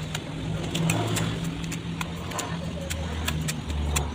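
Steel plastering trowel scooping and throwing mortar onto a concrete block wall, giving irregular clicks and scrapes, over a steady low hum.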